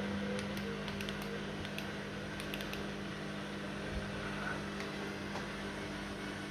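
Washing machine drain pump running with a steady hum as the machine drains, with a few faint ticks over it.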